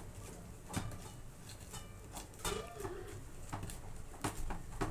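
Wooden cooking stick (mwiko) knocking and scraping against a metal cooking pot as finished ugali is worked loose and turned out: a series of irregular short knocks.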